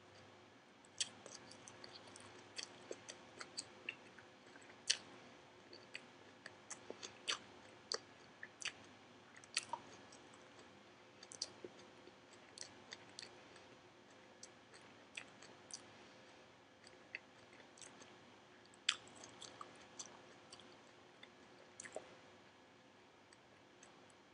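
A person chewing a big mouthful of spinach, heard as a faint, irregular run of crisp clicks.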